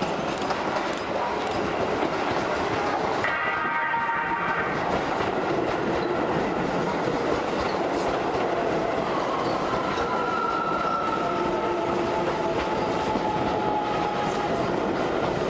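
Two trains running into a station side by side: a steady rumble of wheels on the track, a short horn blast about three seconds in, and a faint high-pitched squeal drawn out through the second half.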